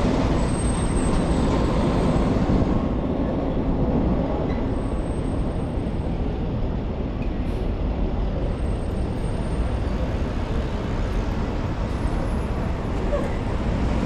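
Steady city street traffic noise: a continuous rumble of passing vehicles with no single event standing out.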